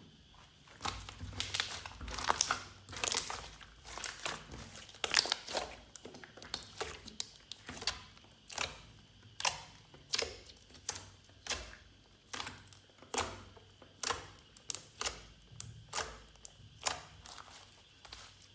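Slime being kneaded and squeezed by hand: a run of short, crackling, clicking squelches, about one or two a second.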